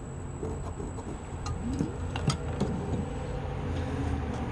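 Light scattered clicks and taps from 3D printer parts being handled, over a steady low hum.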